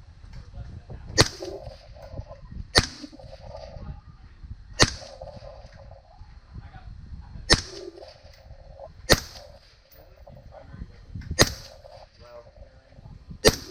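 Seven rifle shots fired at an uneven pace, one every one and a half to three seconds, each a sharp crack.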